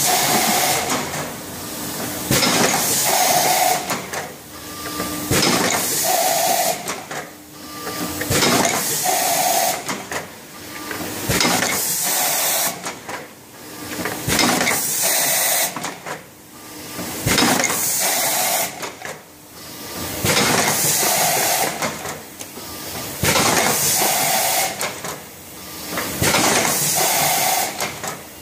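Automatic tube filling and sealing machine running through its cycle. Bursts of hissing air and sharp mechanical clacks repeat about every two and a half seconds.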